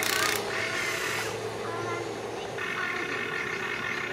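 Electric motors and gearboxes of radio-controlled construction models whining, with several steady tones that shift in pitch as they work, and a short hiss at the very start. Voices can be heard in the background.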